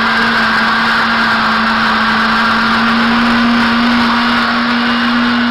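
Old kitchen blender's motor running steadily, churning a thick mix of watermelon, milk and scraps: a continuous whirring hum that swells a little about halfway through.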